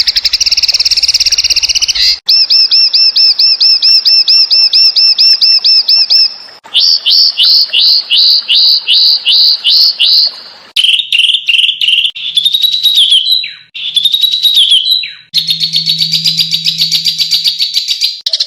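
Mastering track of songbird calls for teaching cage birds: several different bird phrases are spliced one after another, each a fast series of high repeated chirps and whistles, about four notes a second in one section. The bird changes abruptly every few seconds.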